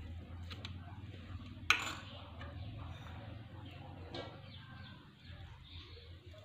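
Low steady hum with a sharp clink about two seconds in and a fainter one about four seconds in, as a spoon knocks against a steel mixing bowl while spice mix is tipped onto maize flour.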